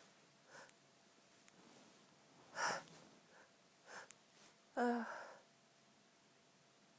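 A woman in a sneezing fit, gasping for breath between sneezes. A sharp, noisy sneeze comes about two and a half seconds in, and a voiced one just before five seconds; these two are the loudest.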